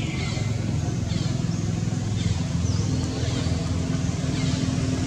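Steady low hum of an engine running throughout, with a few faint high, falling chirps over it.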